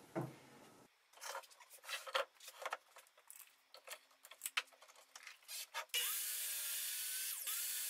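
Scattered clicks and knocks of wood and tools being handled while a stop block is set at a miter saw. About six seconds in, the miter saw starts abruptly and runs steadily, cutting a 2x6 board.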